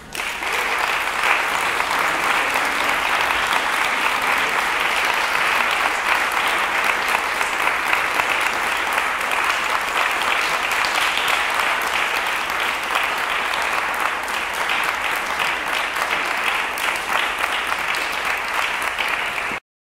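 Audience applauding steadily and densely at the end of a flute duet; the applause cuts off abruptly just before the end.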